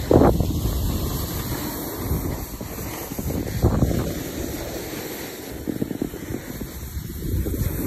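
Wind rushing over a moving microphone while riding downhill, mixed with the hiss and scrape of edges sliding over snow; it swells louder twice, just after the start and again near four seconds in.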